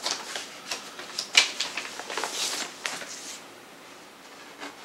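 A vinyl record in a plastic sleeve being handled: crinkling with a few sharp clicks and taps. It dies away about three and a half seconds in.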